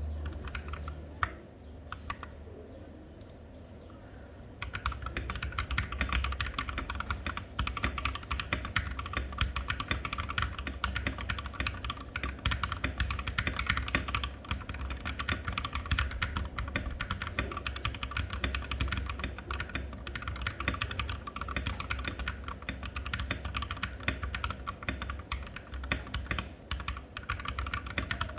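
Mechanical keyboard with lubed Glorious Holy Panda tactile switches and OEM-profile PBT keycaps being typed on: a few scattered keystrokes at first, then fast, continuous typing from about four and a half seconds in.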